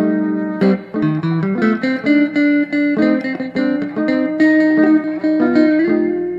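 Two Fender Telecaster electric guitars playing a rhythm duet through an amplifier built for the Telecaster, picked notes and chords changing several times a second. One part uses both pickups together, the other the bridge pickup alone.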